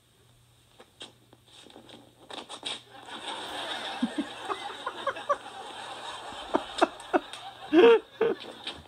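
Sitcom audience laughter, heard through a laptop's speakers, that starts about three seconds in and swells, with a few sharp knocks and a loud yell from a performer near the end.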